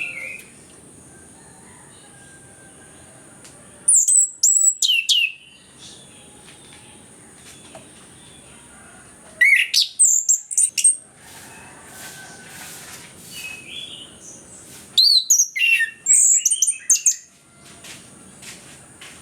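Orange-headed thrush (anis kembang) singing in three loud bursts of rapid, sweeping high notes a few seconds apart, with softer warbling between them.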